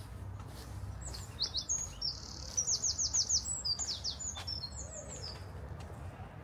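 A songbird singing: a string of quick high whistled notes, each sliding downward, with a rapid trill in the middle, lasting about four seconds. A low steady rumble runs underneath.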